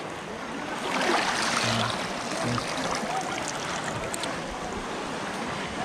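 Muddy water sloshing and splashing around people wading waist-deep, with a louder swell of splashing about a second in.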